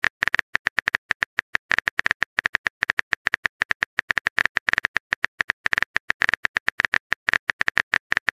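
Rapid, unevenly spaced phone-keyboard tap clicks, about eight a second: a texting-app typing sound effect.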